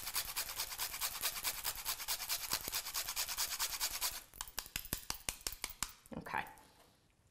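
Whole nutmeg being grated on a small handheld zester: quick rasping strokes, about six a second, that thin out into scattered scrapes after about four seconds and stop near the end.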